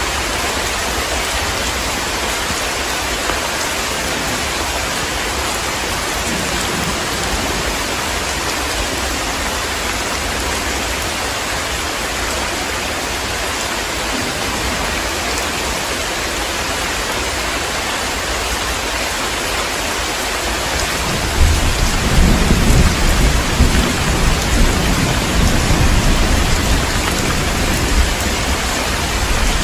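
Heavy, steady rain, with a long rolling rumble of thunder coming in about two-thirds of the way through and going on until near the end.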